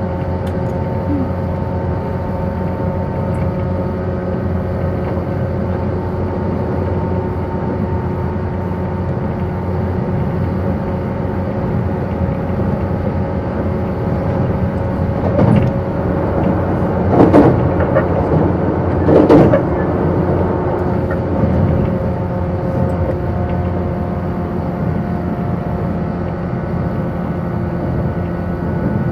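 JR 185 series electric train running at steady speed, heard from inside a carriage: an even rumble of wheels on rails with a steady hum from the motors and gears. A little past halfway come three brief louder clatters.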